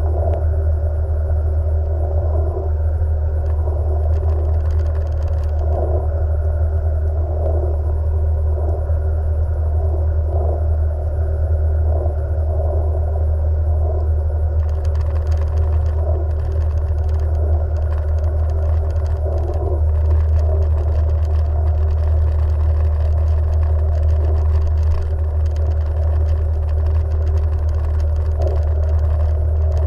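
Jet ski engine running at a steady speed, a strong low drone. From about halfway a rough crackling hiss joins it.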